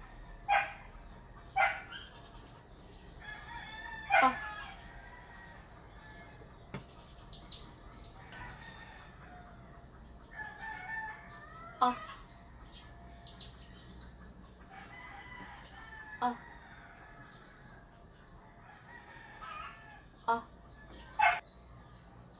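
Roosters crowing several times, with short, sharp sounds in between.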